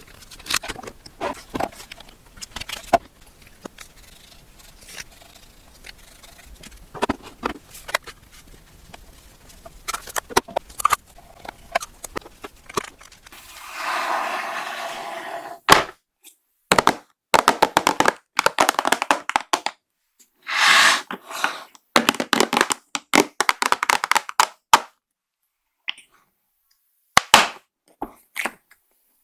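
Makeup-box packaging being handled and opened: a string of sharp taps, cracks and scrapes, with a longer stretch of rustling about halfway through and separate short bursts after it.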